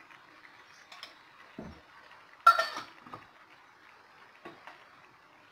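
Metal spoon knocking and clinking against the cooking pan as ghee goes into the curry: a few light clicks, a dull knock, and one loud ringing clink about two and a half seconds in, over a faint steady hiss.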